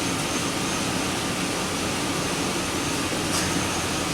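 A 2005 GMC Sierra's V8 running steadily at idle, loaded by the AC and high-beam headlights, while it has a logged engine misfire. There is a single short click near the end.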